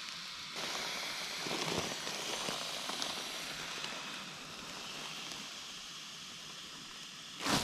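A nylon pack liner used as a pump sack, rustling and crinkling as it is squeezed to force air through a one-way valve into an inflatable pad, a steady noisy rush with faint crackles. A brief louder rustle comes near the end.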